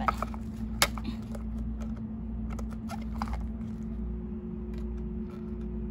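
Light clicks and taps of a small plastic-coated wire toy cage and its plastic water bottle being handled and fitted together: one sharp click about a second in and a few more near three seconds, over a steady low hum.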